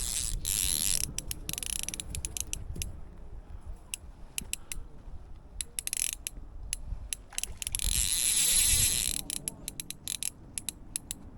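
Fly reel's click-and-pawl drag ratcheting as line is worked in and out while playing a hooked trout. It goes in uneven runs of clicks, with stretches of fast, dense clicking, the longest about eight seconds in.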